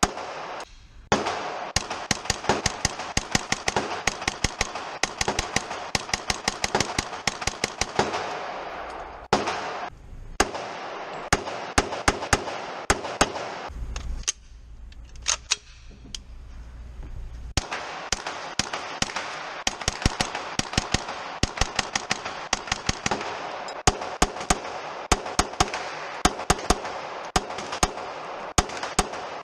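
Rapid, irregular gunshots from firearms on a shooting range, several a second and varying in loudness, with a lull a little past halfway.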